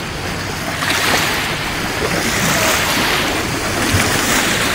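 Small waves washing in and breaking at the water's edge, the noise swelling and easing as each one comes in, with wind on the microphone.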